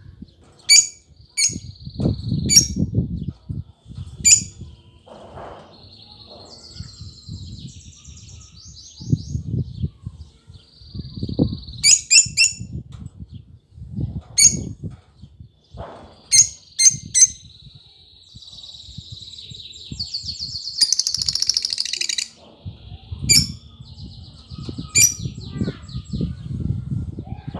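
Lovebirds chirping: sharp, shrill single chirps at irregular intervals, mixed with stretches of buzzy high chattering. Low rustling thuds run underneath.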